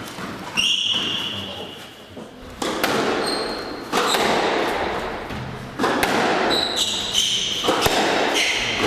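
A squash rally: the ball is struck by racquets and hits the walls every second or two, each hit ringing in the enclosed court. Between hits there are short high squeaks, typical of rubber-soled court shoes on the wooden floor.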